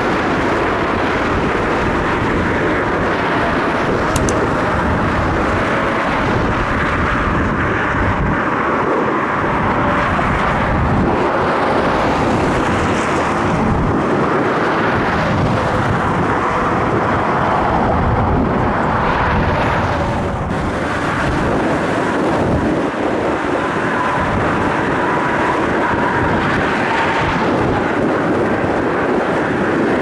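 Jet airliner engines running, with faint whining tones that glide slowly downward, mixed with heavy gusting wind buffeting the microphone.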